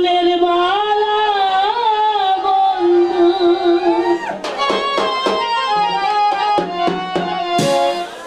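Live Bengali folk song through a microphone and PA: a woman sings a long, wavering held note, and about four seconds in, tabla strokes start up with a shorter-noted instrumental melody.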